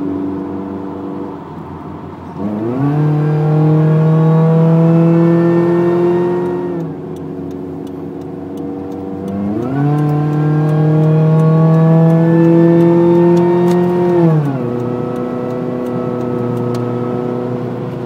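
Supercharged 2.7-litre 3RZ-FE four-cylinder of a 1999 Toyota 4Runner (Eaton M62 TRD supercharger) heard from inside the cab, pulling under acceleration twice. The engine note jumps up about two seconds in and climbs steadily for about four seconds, then drops. It climbs again for about five seconds before falling back to a steady cruise.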